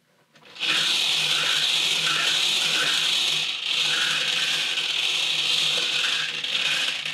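Bingo balls tumbling and rattling in a spinning bingo cage. The rattle starts about half a second in, runs steadily with a brief break around the middle, and dies away near the end.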